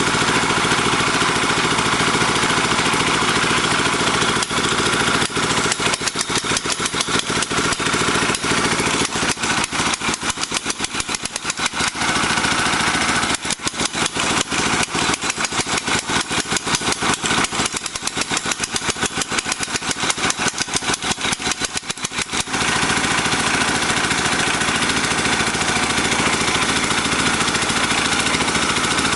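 The small engine of a portable water-well drilling machine running steadily. From about five seconds in until about twenty-two seconds in, the sound breaks into a rapid, uneven pulsing, then settles back to a steady run.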